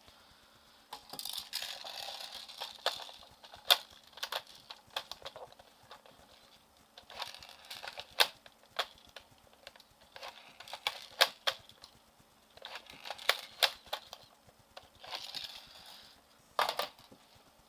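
Handling noise at a cluttered workbench: scattered sharp clicks and light clatter of small tools and parts, with short spells of rustling, over a faint steady hum.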